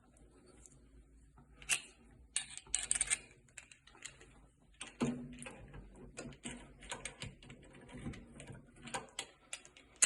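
Irregular small clicks, taps and brief scrapes of handling and cleaning out an open shower valve body after its cartridge has been removed, with a few louder knocks about two, three and five seconds in.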